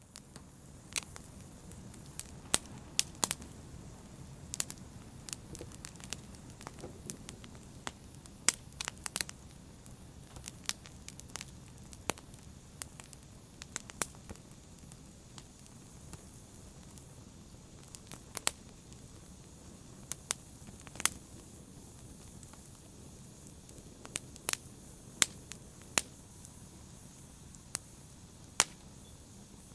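Fireplace fire crackling: irregular sharp pops and snaps, about one or two a second, over a steady low hiss of the flames.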